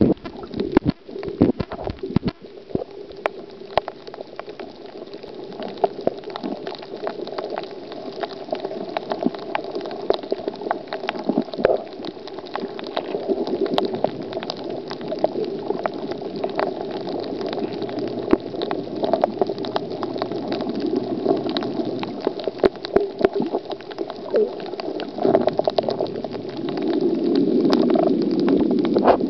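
Underwater sound picked up by a submerged camera: a muffled, steady rush of moving water with many sharp clicks and crackles scattered through it, growing louder near the end.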